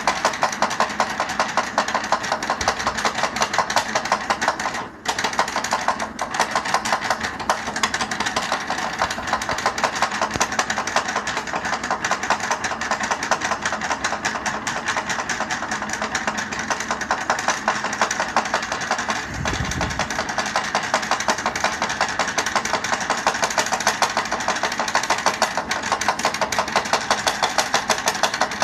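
A chair making a rapid, even chugging that sounds like a tractor engine, with a brief drop about five seconds in.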